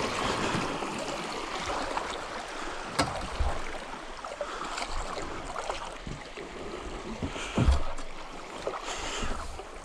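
Rushing water of shallow river rapids streaming past a canoe, with a couple of dull knocks, one about three seconds in and a louder one later on.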